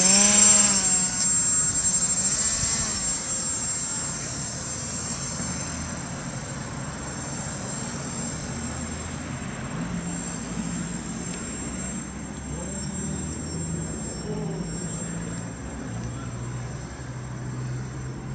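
Oxy 1.0 RC paraglider's electric BackPack XS motor and propeller passing close by. Its pitch drops as it goes past, then it settles into a steady, quieter buzz as the model flies farther off.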